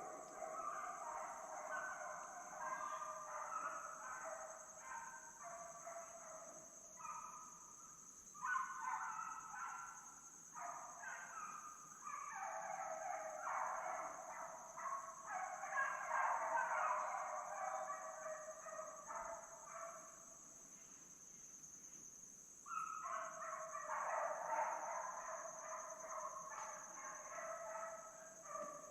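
A pack of deer hounds baying on a chase, many dogs giving voice over one another in long runs. The cry drops away almost entirely for a couple of seconds about two-thirds of the way through, then picks up again.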